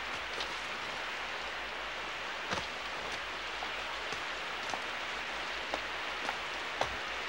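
Heavy rain pouring down: a steady hiss of rain with sharper drops or splashes standing out every second or so.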